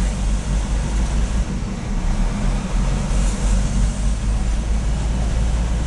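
Diesel railcar running with a steady low engine rumble as the train pulls slowly away from the station, heard from aboard at the front of the train.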